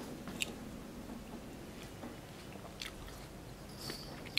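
A person chewing a mouthful of Weet-Bix cereal close to the microphone: soft, faint mouth sounds with a few small clicks.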